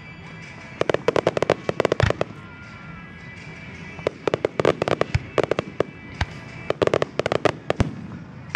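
Aerial fireworks going off in three rapid volleys of sharp cracking reports, about a second, four seconds and seven seconds in, each a quick string of many bangs.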